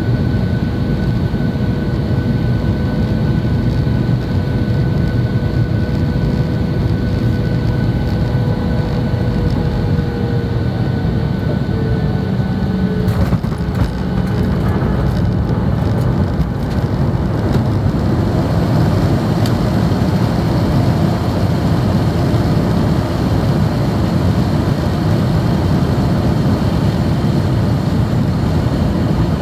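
Boeing 737-800 cabin noise on landing: its CFM56-7B engines and the airflow give a steady loud rumble and rush, with a whine that slides down in pitch as the thrust is taken off. About 13 seconds in, the main gear touches down with a cluster of knocks and rattles, and the rush carries on as the jet rolls out along the runway.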